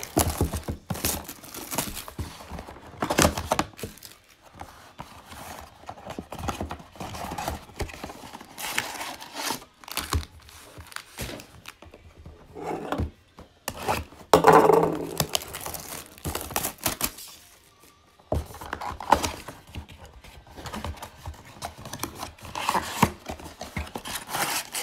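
Plastic wrapping being torn and crinkled off a cardboard box of trading-card packs, then the box handled and the foil packs taken out: irregular rustling, crinkling and light knocks, with a louder burst of crinkling about halfway through.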